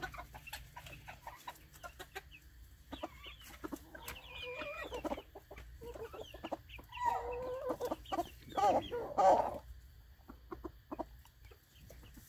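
Chickens clucking, with louder drawn-out calls about four seconds in and again from about seven to nine seconds in, and many short clicks in between.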